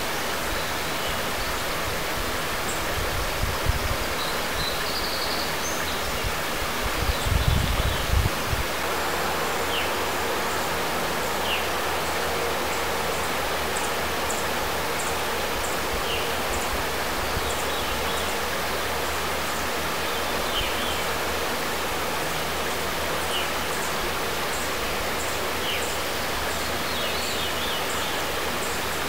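Shallow stream flowing over a gravel bed: a steady rush of running water. Faint high chirps come and go throughout, and a couple of brief low rumbles come in the first eight seconds.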